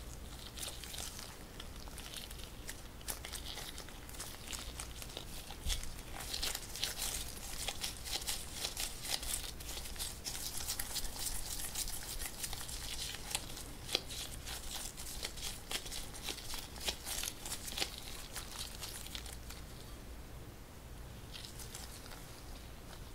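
Hands in disposable plastic gloves crinkling as they squeeze sticky mugwort glutinous-rice dough around a ball of filling, a dense run of small crackles and sticky clicks that thins out near the end. A faint steady low hum sits underneath.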